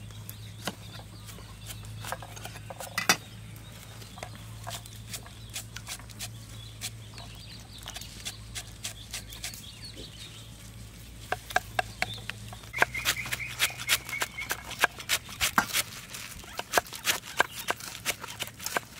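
Kitchen knife cutting on a thick wooden chopping board: a few scattered cuts at first, then quick, even chopping of green onions, about three to four strokes a second, from about eleven seconds in. A brief animal call sounds partway through the chopping.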